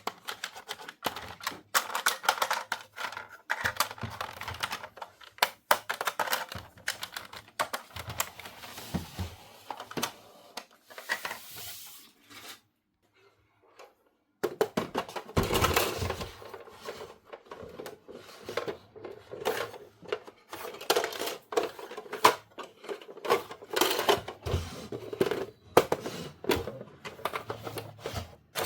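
Small plastic doll-playset pieces handled and set down: irregular light clicks, taps and rattles, with a brief quiet pause about halfway through.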